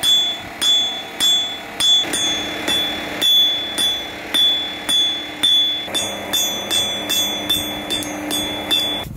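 Hand hammer striking red-hot steel on an anvil, forging a spearhead and its neck. Evenly spaced blows about two a second that come faster near the end, each with a short bright ring from the anvil.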